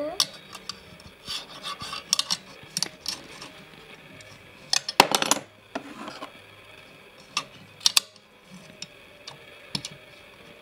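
A glass microscope slide scraping and clicking against the plastic stage and stage clips of a toy microscope as it is pushed into place, with scattered light taps of handling. A louder run of scraping comes about five seconds in.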